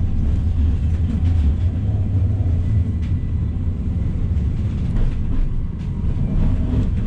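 Tram running, heard from inside the car: a steady low rumble of wheels and traction motors, with a few light clicks about three and five seconds in.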